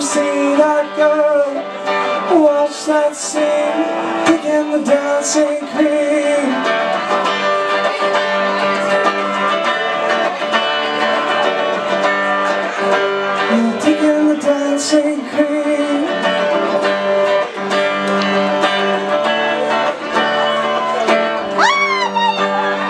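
Electric guitar played live by a solo performer in a long, mostly instrumental passage of strummed and picked notes, with some singing near the start.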